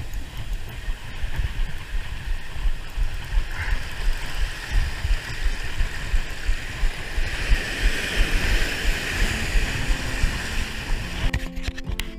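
Surf surging and washing over a shallow rocky reef, with wind buffeting the microphone in a constant uneven rumble. Instrumental music comes in near the end.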